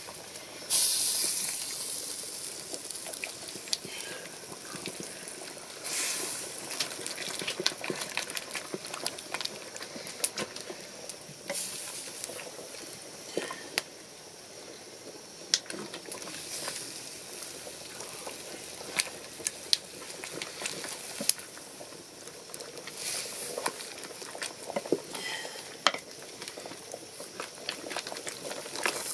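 A pot of chicken in peanut butter sauce bubbling over a wood fire, hissing steadily, while a wooden spoon stirs it gently, with scattered sharp clicks and taps throughout.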